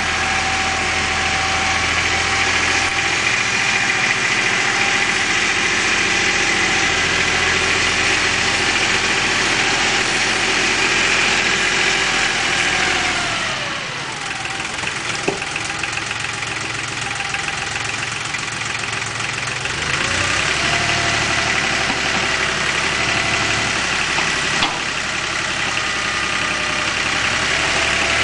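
Lenar FS 254 II compact tractor's diesel engine running steadily. About halfway through its note drops and the sound eases, then about six seconds later it picks back up to the same steady pitch. A sharp click is heard twice.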